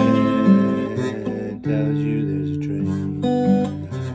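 Acoustic guitar strummed in a gentle rhythm, each new chord struck about every half second to second and left ringing.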